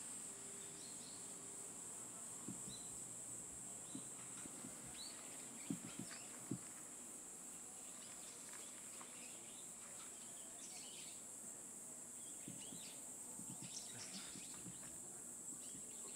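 Faint forest ambience: a steady high-pitched insect drone, with scattered small clicks and cracks of a Eurasian red squirrel gnawing scales off a pine cone, two sharper cracks about six seconds in.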